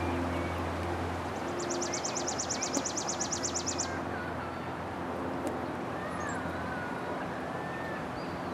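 Outdoor birdsong: a bird's rapid high trill of about two seconds, starting a second or so in, with other birds chirping and whistling, over a steady low hum of distant traffic.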